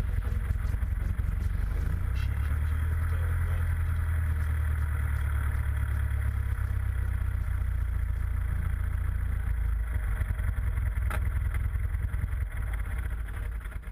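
Interstate S-1A Cadet light aircraft's piston engine and propeller running steadily, heard from the cockpit.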